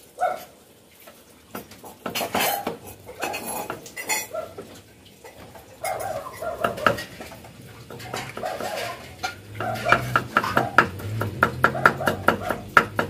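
Cleaver chopping on a round wooden cutting board, a steady run of sharp knocks about four a second in the last few seconds. Before that, scattered clinks and clatter of bowls and utensils being handled.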